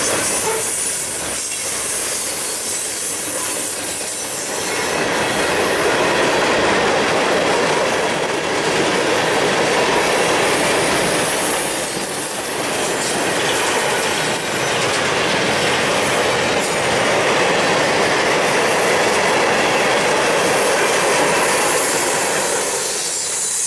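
Norfolk Southern freight train's cars, covered hoppers and then flatcars, rolling past: steel wheels running on the rails in a steady noise that grows louder about four seconds in.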